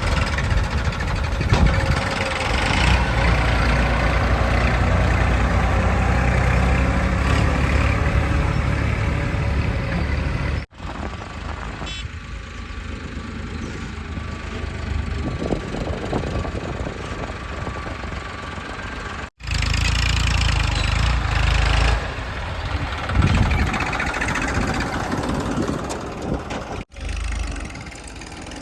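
Diesel engine of a JCB 3DX backhoe loader running and working while it digs and loads mud into a truck. The engine noise is heavier in some stretches and lighter in others, with three abrupt breaks.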